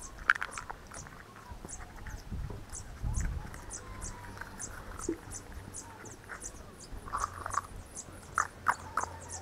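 Soft knocks, clicks and rustles as a dog noses through lightweight plastic tubs on grass and the tubs are moved about. A steady high-pitched chirping repeats about three times a second underneath.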